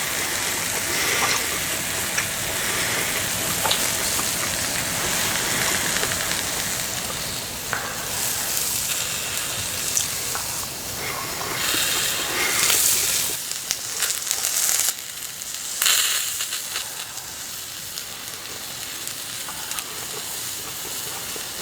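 Food sizzling in a frying pan: a steady hiss with occasional sharp crackles and ticks, growing brighter for a few seconds in the second half.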